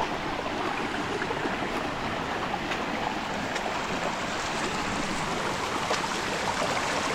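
Steady rushing and babbling of a flowing stream.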